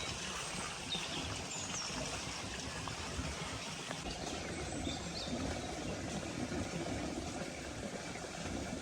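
Stream or brook running steadily, an even rushing of water, with a few faint high chirps over it.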